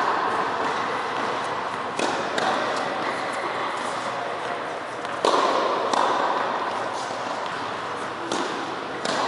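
Tennis balls struck by rackets and bouncing on an indoor court: sharp knocks every few seconds, the loudest about five seconds in, each ringing on in the hall's echo.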